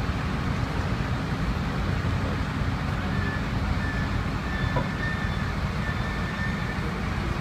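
Steady low diesel rumble of a truck-mounted mobile crane running while it holds a suspended concrete bench element, mixed with street traffic; a faint high whine comes and goes in the middle.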